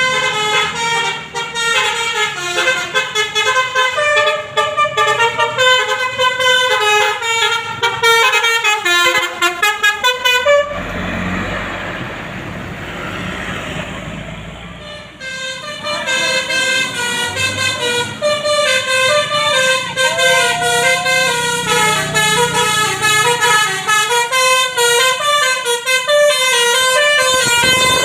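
A Basuri telolet multi-tone air horn on a bus plays a quick tune of stepped notes. About ten seconds in it stops for a few seconds while rumbling engine and road noise takes over. Then the tune starts again.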